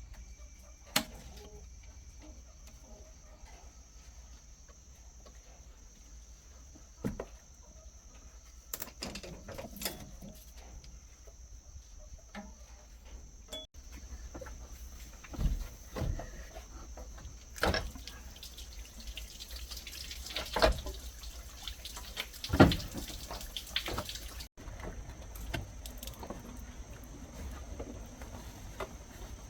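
Irregular sharp knocks and clinks of tools and metal parts being handled, with a denser stretch of noise between them about two-thirds of the way through.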